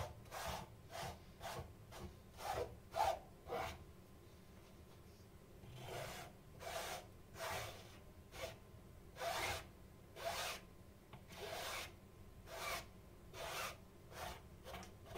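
A metal spoon scraping and spreading thick paint across a canvas in a series of short strokes, about one every half second to a second, with a pause of about two seconds in the middle.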